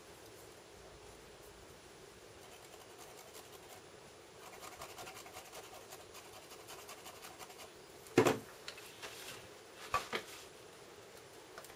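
Faint rubbing and scratching of an ink applicator worked over a plastic stencil on paper, then a sharp knock about eight seconds in and two smaller knocks near ten seconds.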